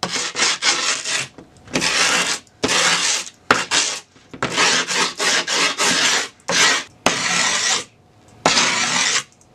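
File rasping along the edge of fresh grip tape on a fingerboard deck, in a dozen or so quick back-and-forth strokes with short pauses, scoring the edge so the excess can be cut off with a razor.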